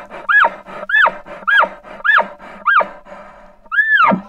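Cow elk mewing: a rapid string of high, squealing calls, each rising and then falling, about two a second, ending after a short pause with one longer call that drops low.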